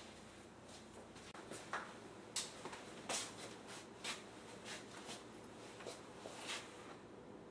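Faint, irregular light taps and shuffles of people moving about a room, such as footsteps and rustling clothing, about a dozen scattered clicks over a low hiss.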